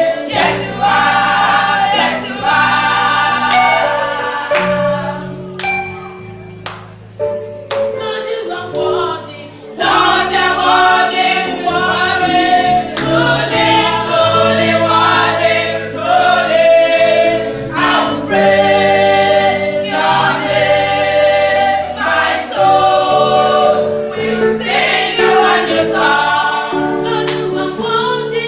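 Church choir singing a gospel song with instrumental accompaniment; it drops to a quieter passage for a few seconds before the full choir comes back in.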